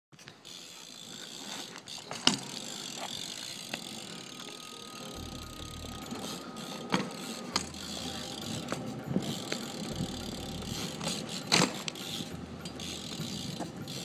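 BMX bike rolling on asphalt with the rear hub's freewheel ratchet buzzing as it coasts, broken by a few sharp knocks, the loudest about two seconds in.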